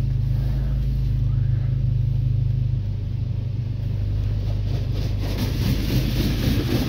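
Automatic car-wash water jets spraying against the car's windows and body, heard from inside the cabin over a steady low hum. The spray grows louder and harsher about five seconds in.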